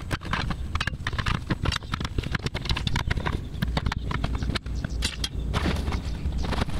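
Steel tire irons clanking and knocking against a steel tractor wheel rim as the tire's bead is levered off, in a run of irregular sharp knocks, with scraping and shuffling on gravel.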